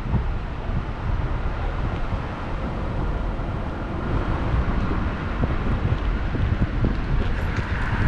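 Steady road and engine noise from a moving car, with wind buffeting the microphone in a low, fluttering rumble.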